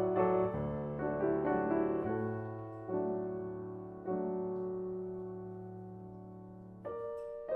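Solo grand piano playing a slow passage of sustained chords that ring and fade, with new chords struck about three and four seconds in, then a long fade before a brighter chord near the end.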